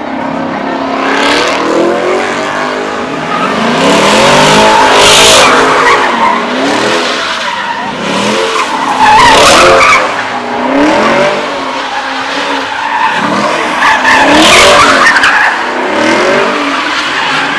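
A car doing a burnout: the engine revs rise and fall over and over while the spinning tyres squeal and skid, loudest about five, nine and fourteen seconds in.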